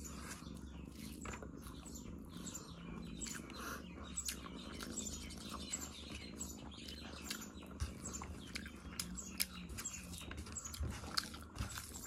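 Close-up eating sounds: wet chewing and small sticky clicks of a mouth and fingers working through curry and rice, over a steady low hum.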